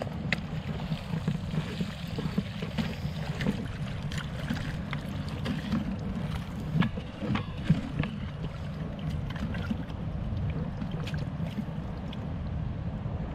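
Steady rushing of a mountain stream with a low wind rumble on the microphone, broken by scattered small knocks and clicks.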